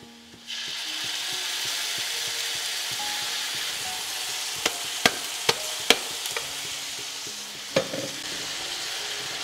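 Chilies frying in hot oil with shallots and garlic: a steady sizzle that begins about half a second in. A spatula knocks against the pan four times in quick succession around the middle, and once more a little later.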